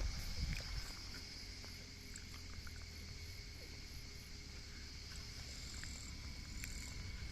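Steady chorus of insects: a continuous high shrill drone with a second, lower band, over a low rumble and a few scattered light ticks.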